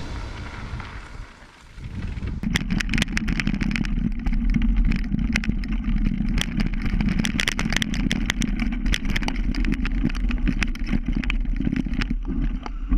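A vehicle engine running steadily, with many sharp clicks and knocks over it, starting about two seconds in.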